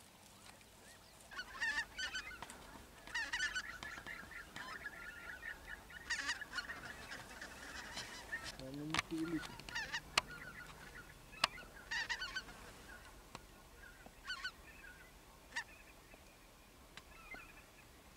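Wild geese honking in repeated bursts of calls as a small flock flies overhead. Three sharp clicks come in the middle.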